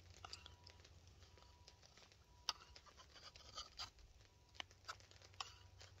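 Faint scraping of a slip-joint folding knife blade shaving a wooden stick, with a few sharp ticks where the blade catches and skips, the loudest about two and a half seconds in. The cut is kind of skippy, which the carver puts down to the blade's edge being ground a little thick.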